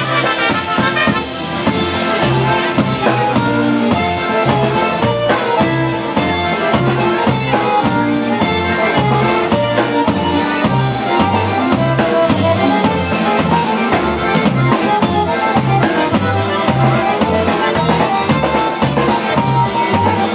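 Live polka band playing: a concertina and a piano accordion carry the melody over electric bass and drum kit, with a steady bass beat about twice a second.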